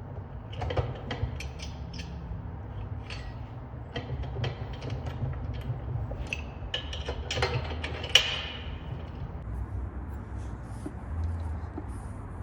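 Scattered knocks, clicks and clatter, the loudest a single sharp knock about eight seconds in, over a steady low hum; the clatter dies away in the last few seconds.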